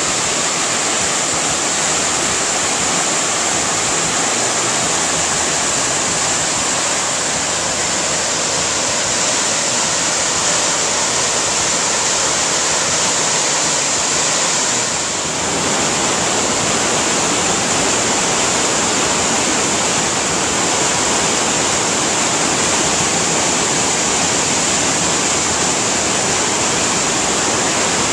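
A cascading waterfall rushing loudly and steadily, an even wash of falling water loud enough to drown out voices.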